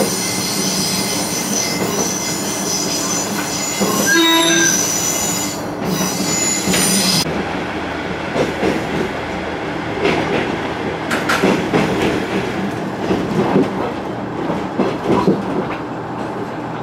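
KiHa 110 series diesel railcar running, heard from behind the cab. Its wheels squeal steadily on a curve for the first seven seconds, with a short horn blast about four seconds in. The squeal then stops and the train runs on with a duller rumble and occasional knocks through a tunnel.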